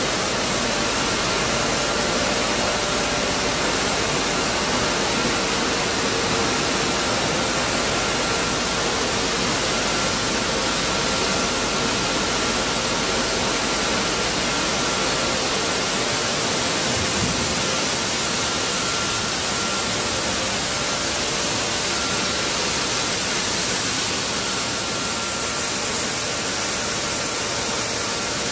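Stone flour mill plant machinery running: a steady, even rushing noise with faint steady hums.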